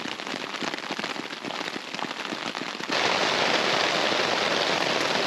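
Rain pattering on a nylon tarp shelter, many separate drops ticking sharply. About three seconds in it switches abruptly to a louder, denser, even hiss of steady rain.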